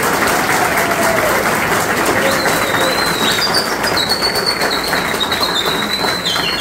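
A small group applauding with steady hand claps. A high, thin, wavering whistling tone joins about two seconds in and holds to the end.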